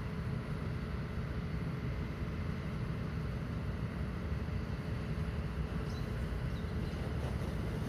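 Steady low outdoor rumble with a faint constant hum in it.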